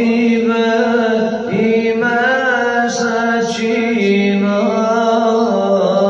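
A man singing an ilahija, an Islamic devotional hymn, in long held notes that bend and waver between syllables.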